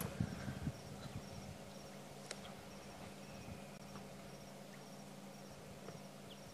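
Quiet bush ambience: faint, regularly repeating high-pitched insect chirping over a low steady hum, with a few faint sharp cracks.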